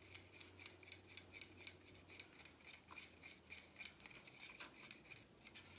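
Near silence: faint, rapid scratchy ticks of hands handling a small cup of black cell activator, over a low steady hum.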